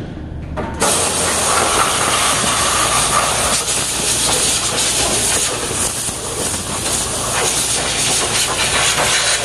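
Compressed-air blow gun built onto a pneumatic cheese slicer, blasting air in a loud steady hiss that starts about a second in; it is the machine's air cleaner for blowing it clean.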